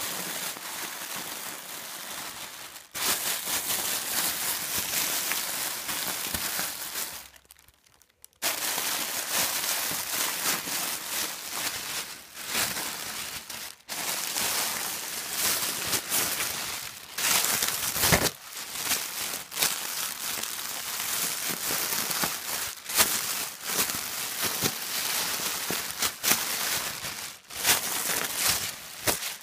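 Clear plastic packaging being crinkled and crumpled by hand: a steady crackling with one short pause about eight seconds in.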